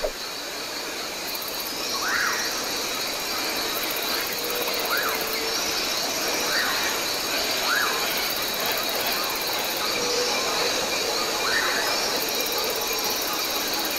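Amazon rainforest ambience: a steady hiss of insects with repeated chirping and short rising-and-falling bird calls every second or two.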